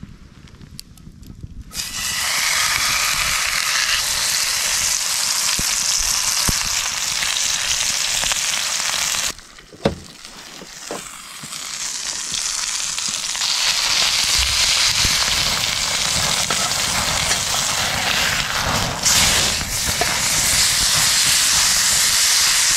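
Steak sizzling hard in a hot cast-iron skillet over campfire coals, starting abruptly about two seconds in as the meat goes into the pan. The sizzle drops away for a couple of seconds around the middle, then comes back just as strong.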